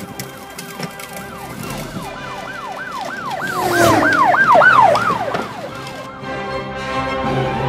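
Emergency-vehicle siren sweeping quickly up and down, about three sweeps a second, swelling louder and then fading away about six seconds in. Music comes in near the end.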